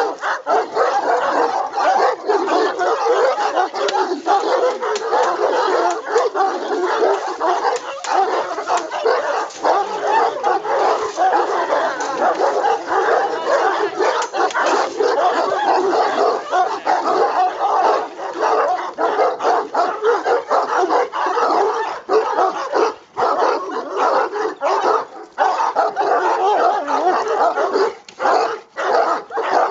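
A pack of Fila Brasileiro dogs barking, yipping and whining all at once in a continuous din of overlapping calls, with only brief lulls now and then.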